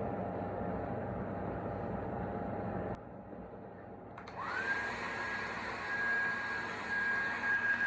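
A small electric motor whirring steadily. After an abrupt cut about three seconds in, a motor spins up with a rising whine that settles into a steady high pitch.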